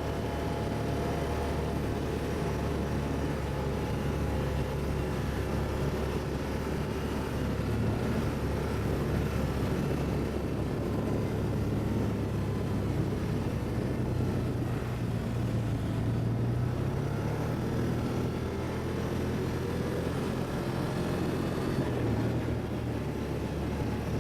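ATV engine running steadily, its low hum drifting slightly in pitch.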